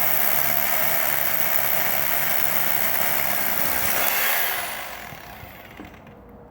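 DeWalt SDS Plus rotary hammer drilling with a 10 mm bit, running steadily with a high motor whine. About four seconds in the trigger is released and the motor spins down, its whine falling in pitch as the noise dies away.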